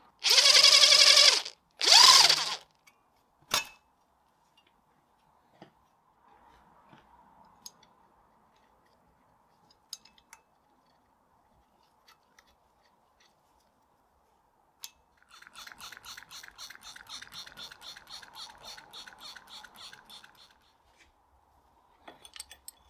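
Cordless power driver with a socket extension spinning out the cooling-fan bolts: two short whirring runs in the first few seconds, the second rising in pitch, followed by a sharp click. Later comes a fast, even run of clicking lasting about five seconds.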